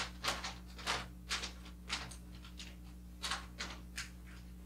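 Wrapping paper rustling and crinkling as it is folded and tucked around a box, in a string of short, irregular crackles that bunch together in the first two seconds and again near the end.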